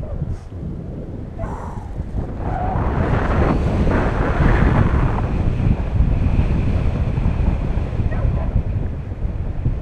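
Wind buffeting an action camera's microphone during a tandem paraglider flight: a loud, gusting rush with no pitch. It grows louder from about three seconds in, as the glider banks through a turn.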